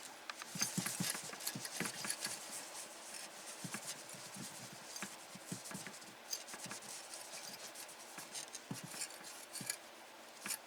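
Faint rubbing and scratching of a wipe scrubbing old thermal paste off a PNY 1660 Super graphics card, in quick, irregular strokes.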